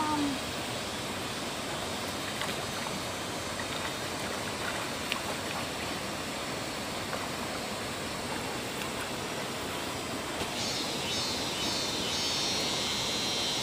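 Steady rush of running water. About ten seconds in, a faint high-pitched hiss joins it.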